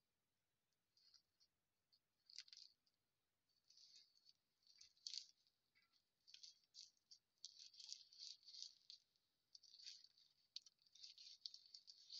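Faint, irregular rustling and crinkling of a rolling paper and tobacco being worked between the fingers as a cigarette is hand-rolled, growing busier in the second half.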